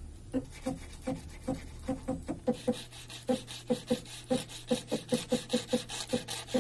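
Nomad 883 Pro desktop CNC mill's stepper motor jogging in short steps, each a brief hum, about three a second, while a slip of paper is held under the end mill to set the tool height. From about two and a half seconds in, a scratchy rub of the paper against the bit joins the steps.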